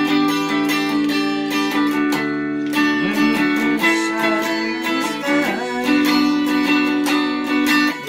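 Squier electric guitar strumming chords in a steady rhythm, with a few sliding notes in the middle.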